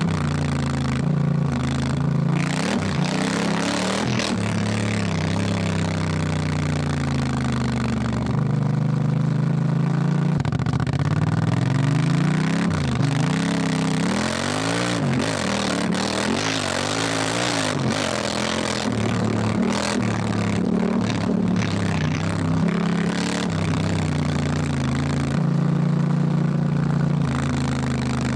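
Honda Africa Twin parallel-twin motorcycle engine under way, its pitch rising and falling as the throttle opens and closes, with several quick revs in a row about halfway through. A steady rushing noise runs underneath.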